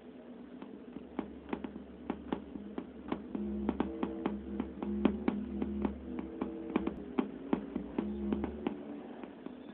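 Software synthesizer playing short notes that step between a few low-to-middle pitches, driven by a hand moving in front of a webcam; the notes come thickest in the middle stretch. Sharp clicks run through it, and a low hum sits underneath.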